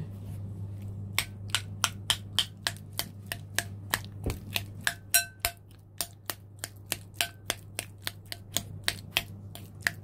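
A metal utensil mashing avocado on a ceramic plate, tapping sharply against the plate about three or four times a second, starting about a second in.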